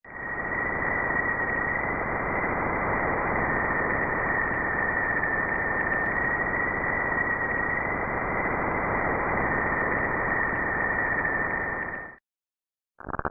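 NASA space recording played as sound: a steady hiss of static with a high, thin whistle held almost level on top and wavering slightly. It cuts off abruptly about twelve seconds in.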